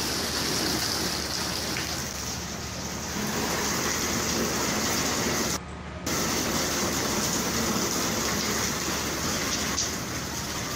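Steady rain pouring down, as recorded by a phone, with a brief break in the sound about halfway through.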